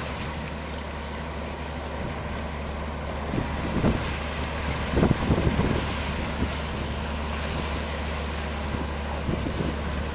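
Cargo ship's engine running with a steady low drone as the ship reverses in to dock, under a constant hiss of wind. Gusts of wind buffet the microphone about four and five seconds in, the loudest sounds in the stretch.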